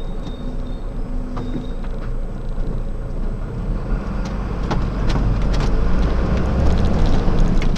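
Heavy truck's diesel engine running, heard from inside the cab as the truck creeps forward in slow traffic; it grows louder about five seconds in as the truck pulls away, with a few light cab rattles and clicks.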